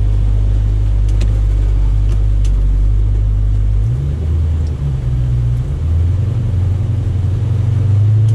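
The 6.4-litre HEMI V8 of a 2020 Dodge Challenger Scat Pack 1320 running shortly after a cold start, heard from inside the cabin. It holds a steady low note at first; about four seconds in, the pitch lifts and wavers as the car pulls away, then settles higher.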